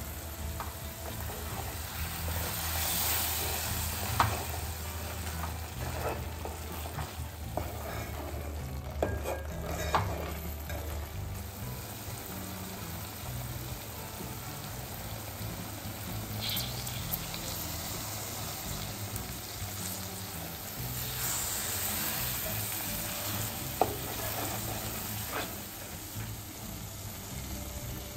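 Prawn curry sizzling in an aluminium pot as it cooks down to a thick gravy, stirred with a spoon that clicks sharply against the pot a few times.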